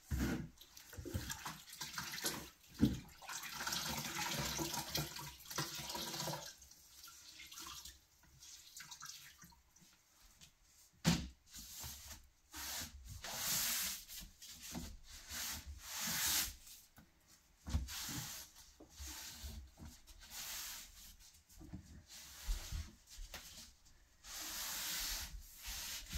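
Cloth rubbing and wiping along a hand-sanded, painted wooden cabinet door frame in irregular swishing strokes, clearing off sanding dust. A single sharp knock about eleven seconds in.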